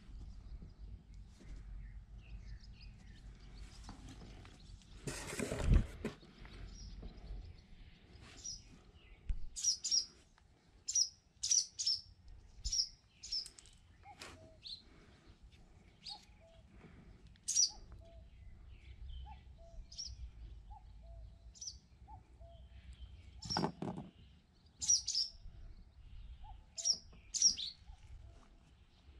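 Small birds chirping in short, high calls, over and over, with a lower short note repeating about once a second in the second half. A brief loud burst of noise comes about five seconds in, and a shorter knock-like noise later on.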